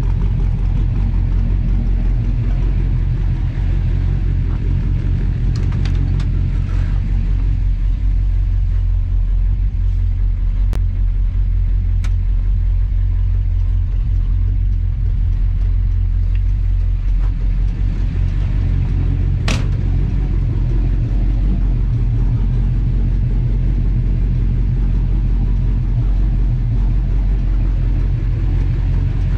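1957 Plymouth's engine idling: a steady low rumble that holds even throughout, with a sharp tick about two-thirds of the way through.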